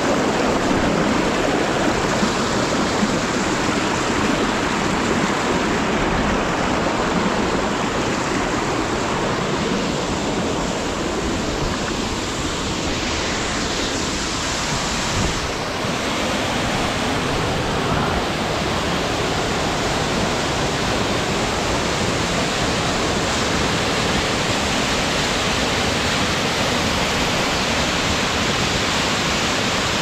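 Mountain stream cascading over rocks and a waterfall: a steady, loud rush of water.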